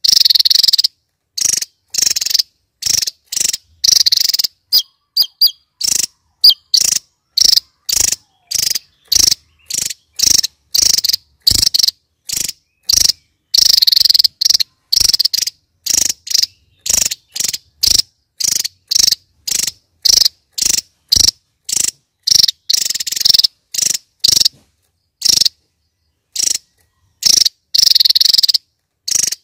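Javan tesia singing: a rapid series of short, high-pitched, insect-like notes, about two bursts a second with silence between, some bursts longer and fuller.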